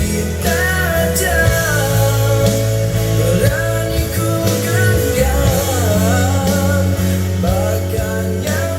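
A pop song in Iban with a band backing of bass and guitar and a gliding lead melody line, played back through a MOVEX PA system and its 8-inch mid-high speakers.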